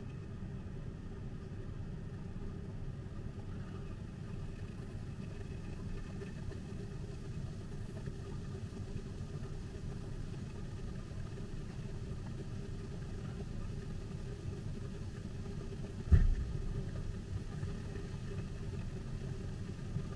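Steady low background rumble or hum with no speech, and a single short thump about sixteen seconds in.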